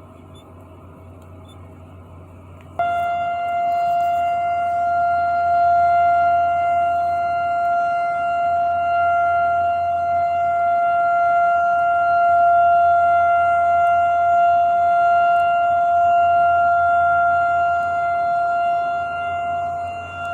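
Model 3 air raid siren sounding a steady held tone with several overtones during its weekly test. It is faint at first, then jumps much louder about three seconds in and holds steady.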